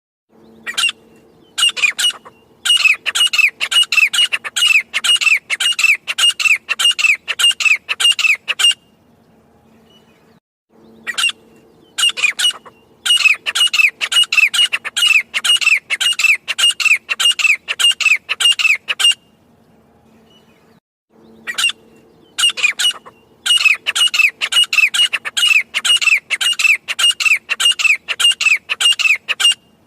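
Grey francolin calling in three bouts. Each bout opens with one or two separate notes and runs into a fast string of repeated notes, about two a second, with pauses of about two seconds between bouts.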